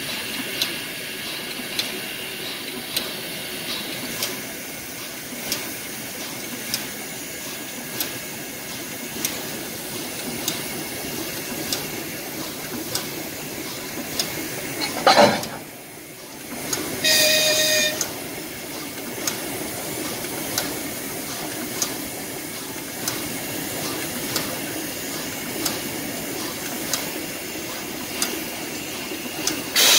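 Steam locomotive hissing as steam escapes from its front end, with a regular clicking about every two-thirds of a second. About halfway through there is a brief loud sweep falling in pitch, followed by a short horn or whistle blast lasting about a second.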